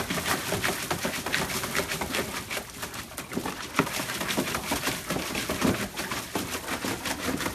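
A dog digging at the water of a plastic paddling pool with its front paws, making rapid, irregular splashes.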